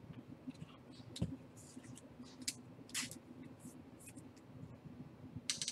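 Faint, scattered light rustles and scrapes of trading cards being handled and slid against one another, over a low steady hum.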